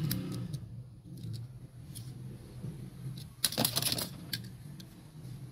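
Diecast toy cars clicking and clattering against each other and a plastic tub as a hand rummages among them, with a short burst of clatter about three and a half seconds in and a few single clicks elsewhere, over a low steady hum.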